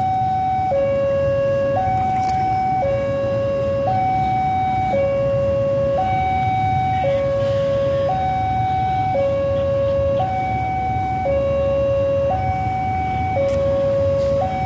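Electronic two-tone warning alarm of a railway level crossing, alternating evenly between a higher and a lower tone about once a second, sounding as a train approaches. A steady low rumble runs underneath.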